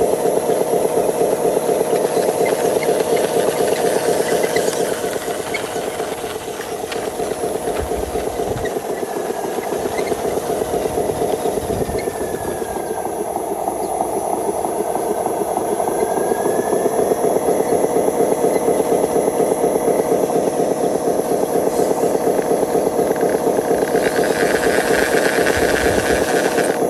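Remote-control Hino 500 model truck driving over grass and dirt with a loaded trailer, giving a steady, rapidly pulsing engine-like running sound. It drops a little in level as the truck moves away and rises again as it comes back. A short hiss is heard near the end.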